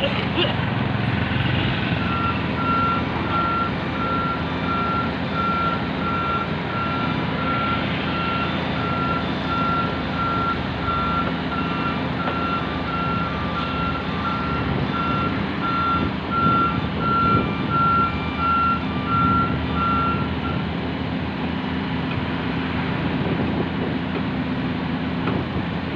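A construction machine's warning alarm beeping evenly, about once a second, over a heavy machine's engine running steadily. The beeping starts about two seconds in and stops about three-quarters of the way through, leaving the engine.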